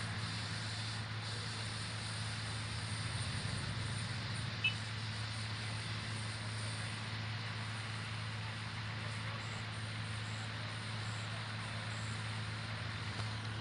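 Vehicle engines idling steadily, a constant low hum under a general hiss, with one brief click about four and a half seconds in.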